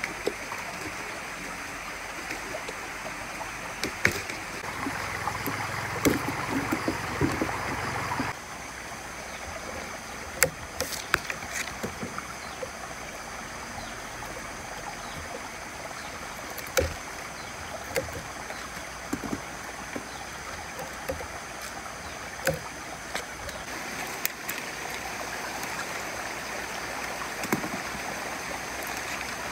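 Steady rushing of a flowing stream, with scattered sharp knocks and clicks over it; the water sound drops abruptly about eight seconds in.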